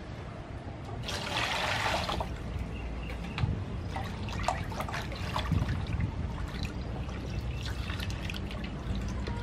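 Water poured from a plastic scoop into a metal basin about a second in, then hands swishing and rubbing squid in the water with small splashes as the squid is washed.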